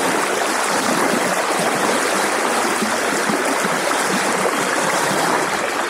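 Fast-flowing, muddy river water rushing and splashing steadily.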